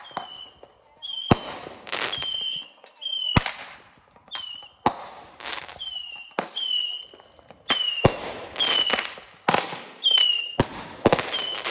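Consumer fireworks going off: more than a dozen sharp bangs in an irregular string, many of them followed by a short falling whistle.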